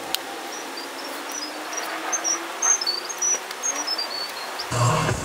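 A small bird chirping a quick run of short, high notes, some groups stepping down in pitch, over an outdoor background hum. A click comes at the very start, and electronic music with a steady beat comes in near the end.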